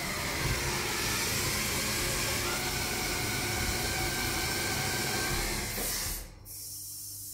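Power unit of an MP hydraulic lift running: a steady whooshing hum from the oil tank's pump and valve block. It drops suddenly to a quieter hum about six seconds in.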